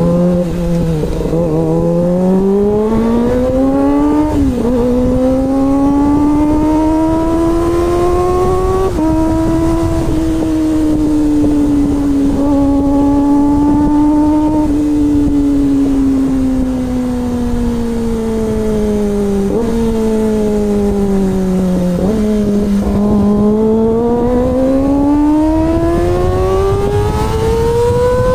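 Kawasaki ZX-25R's 250cc inline-four engine running under way, its pitch climbing and falling with the throttle and dropping sharply a few times, as at gear changes.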